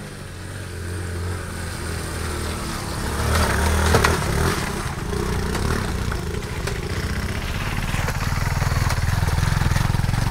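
Motorcycle engines running on a trail ride. A steady low engine note carries throughout, and another bike's engine grows louder between about three and four seconds in.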